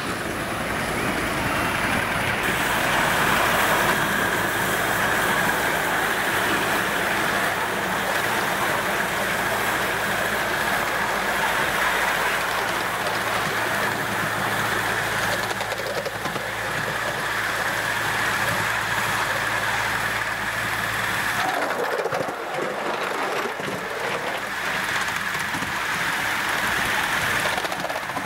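5-inch gauge live steam model of a GWR Hall class locomotive running along a raised track, its exhaust and its wheels on the rails making a steady rushing noise.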